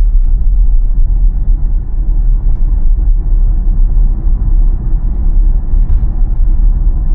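Steady low rumble of tyre and road noise inside a moving 2023 Tesla Model Y's cabin, with no engine note from the electric drivetrain.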